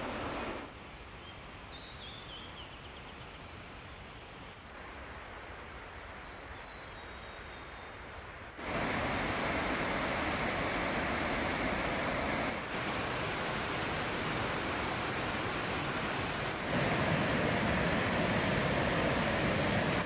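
Mountain stream and waterfall water rushing over rocks, a steady noise. It is quieter at first, then louder from about nine seconds in and louder again near the end, with a faint high chirp about two seconds in.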